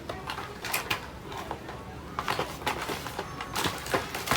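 Crinkling and rustling of makeup packaging handled by hand as an item is taken out of a box, in short irregular crackles and taps.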